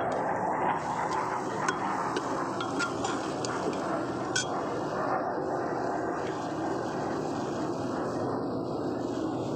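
Steel ladle stirring onions and tomatoes frying in ghee in an aluminium pot, with a few sharp metallic clinks of ladle on pot, over a steady low rumble.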